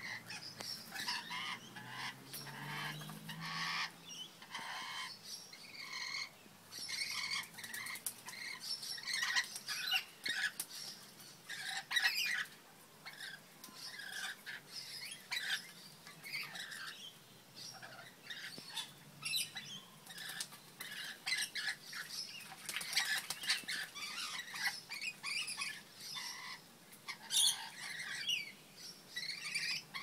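Rainbow lorikeets chattering with a continuous stream of short, shrill screeching calls, with wings flapping and splashing in the birdbath water now and then as they bathe.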